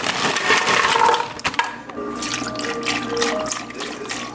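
Almond milk pouring from a carton into a plastic blender jar of strawberries, loudest over the first couple of seconds. Background music with changing notes takes over after that.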